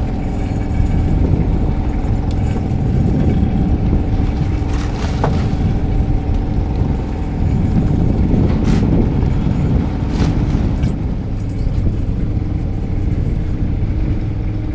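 Fishing boat's engine running steadily, a continuous drone with a steady hum. A few sharp knocks come from crab traps being handled on deck.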